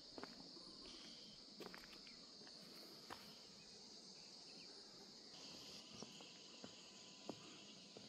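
Faint, steady high-pitched insect chorus, with a few scattered short sharp ticks.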